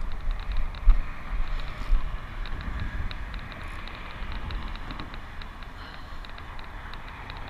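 Wind buffeting the microphone: a low rumble with two sharp thumps about one and two seconds in, over a string of faint light ticks.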